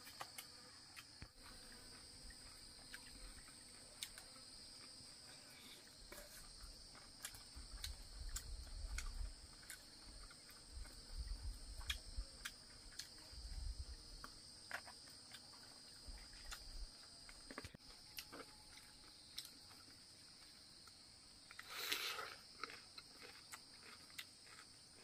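Faint, steady high-pitched drone of insects. Scattered small clicks and taps run through it, likely chopsticks and eating at the bamboo tray. Low rumbles come in the middle, and a short rustling burst near the end.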